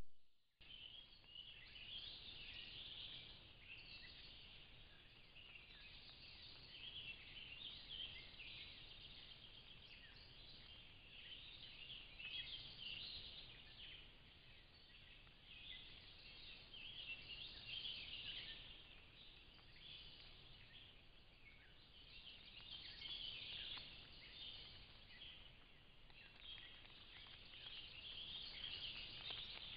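Faint woodland dusk chorus of small animals chirping high and unevenly, swelling and fading every few seconds. A brief click at the very start.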